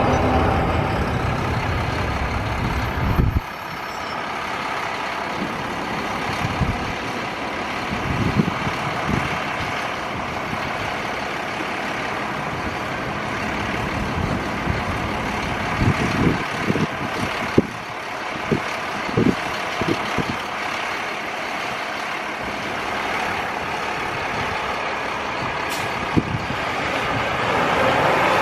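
A heavy truck's engine rumbling, cutting off abruptly about three seconds in. Steady street noise follows, with scattered knocks and thumps.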